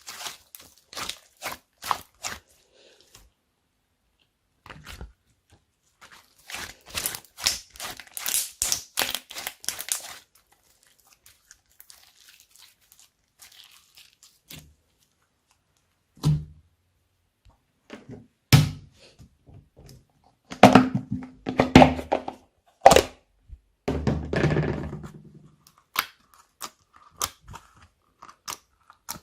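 Slime being mixed and squeezed by hand: clusters of crisp crackling clicks, densest around the middle of the first half, then louder low pops and thumps in the second half.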